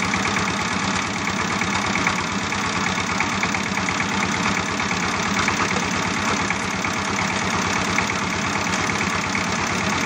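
A steady engine-like running sound with a fast, even low knocking pulse, like an idling tractor engine.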